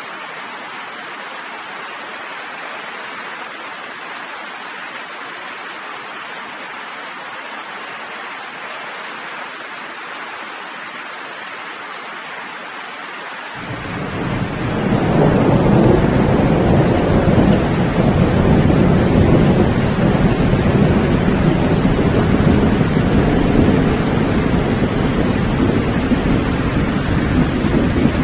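Steady rain falling, heard as an even hiss. About halfway through, a long low rumble of thunder swells in over a second or two and keeps rolling on, louder than the rain, to the end.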